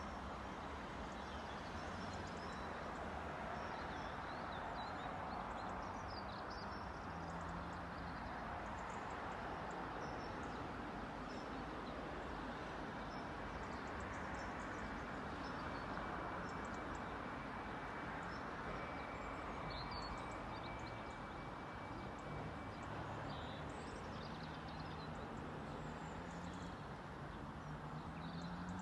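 Steady hum of an electric multiple unit standing at a station platform, with small birds chirping over it in short scattered calls. A thin high tone is heard through the middle stretch.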